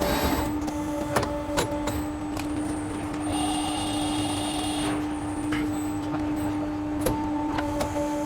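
CNC pipe-processing machine running with a steady motor hum, scattered clicks and knocks. A higher whine rises about three seconds in and stops near the middle.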